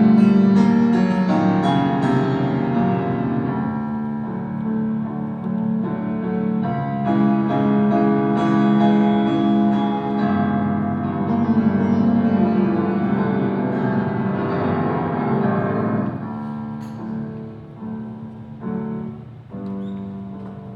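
Live band playing an instrumental passage led by keyboard chords. It thins out and gets quieter in the last few seconds.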